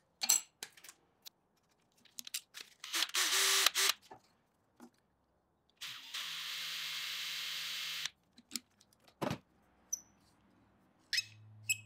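Cordless drill running steadily for about two seconds, spinning a TIG-wire hinge pin into a brass hinge barrel, after a louder short burst about three seconds in. A few light clicks of pliers and wire come at the start, and a single sharp click follows the drill.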